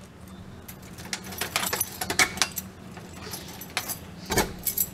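A bunch of keys jangling and a key working in a door lock: a run of small clicks and rattles, then a heavier clunk near the end.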